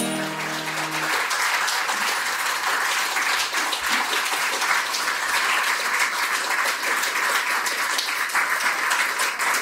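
Audience applauding, a steady dense clapping. The acoustic guitar's last chord rings out under it and fades about a second in.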